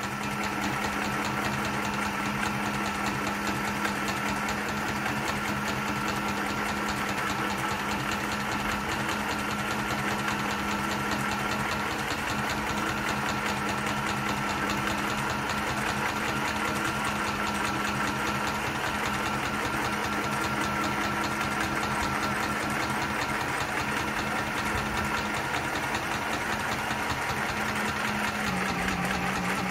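Compact children's electric sewing machine running continuously as fabric is stitched, a steady motor whir with a fast, even stitching chatter. Its pitch drops slightly near the end as it slows.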